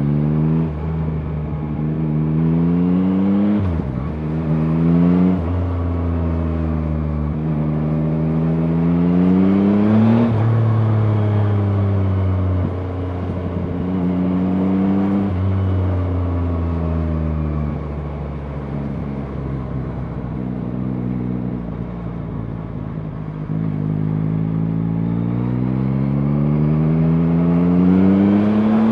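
2023 Yamaha MT-09's 890 cc inline-three engine pulling up through the gears. Its pitch climbs and then drops sharply at each upshift, with steadier, lower-revving cruising in the middle before it accelerates again near the end.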